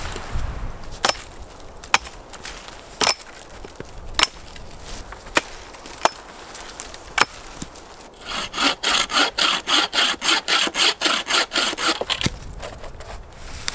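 Sharp knocks on dead wood, about one a second, as a hatchet works a dead branch, then a bow saw cutting the branch in quick even strokes, about four a second, for some four seconds before stopping.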